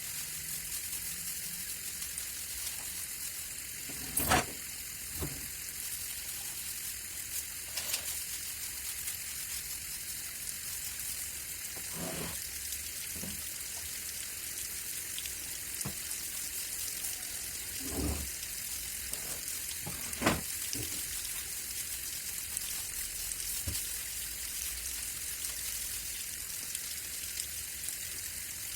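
Steady hiss of running or spraying water, with a few scattered knocks and clatters, the loudest a little after four seconds and near the twenty-second mark.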